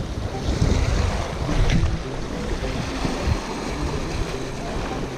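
Sea waves washing and sloshing over shoreline rocks, with wind buffeting the microphone.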